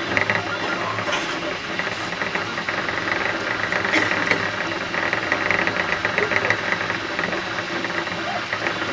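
Desktop FDM 3D printer at work: its stepper motors buzz and chatter rapidly as the printhead moves back and forth laying down plastic, over a steady hum.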